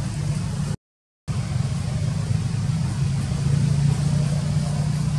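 Steady low mechanical rumble, broken by a sudden silent gap of about half a second roughly a second in.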